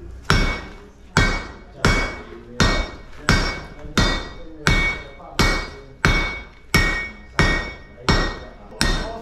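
Hand-hammer blows on metal at a blacksmith's anvil, forging a keris blade. About thirteen strikes fall at an even pace of roughly three every two seconds, each with a bright metallic ring.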